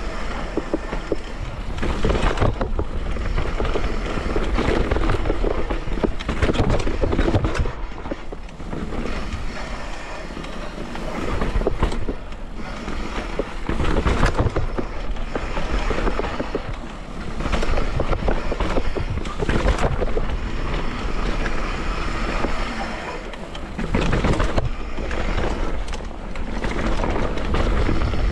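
Downhill mountain bike riding fast over a rough dirt trail: tyres on dirt, wind rumbling on the microphone, and the bike rattling with frequent knocks over roots and bumps, swelling and easing every few seconds.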